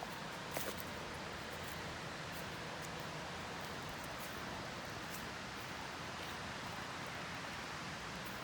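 Steady outdoor background hiss with a couple of faint clicks less than a second in.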